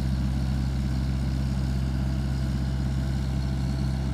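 Heavy-equipment engine running steadily, a constant low drone with no change in speed.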